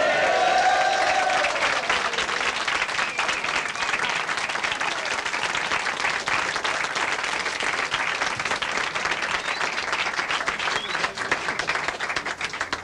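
A room full of men cheering with a shout, then applauding, many hands clapping steadily.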